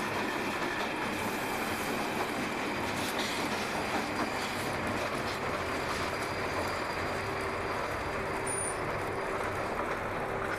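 London Underground Northern Line tube train running through the tunnel and pulling into a station, heard inside the carriage as a steady rumble and rail noise. A faint steady whine comes in about halfway through.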